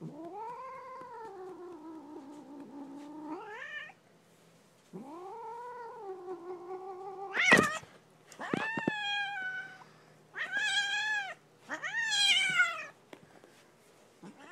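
Black-and-white domestic cat yowling: five long drawn-out calls that bend up and down in pitch, the last three higher and louder, with a sharp short burst about halfway through.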